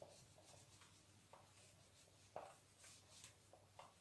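Near silence, with a few faint short scuffs and taps of a felt eraser wiping a whiteboard.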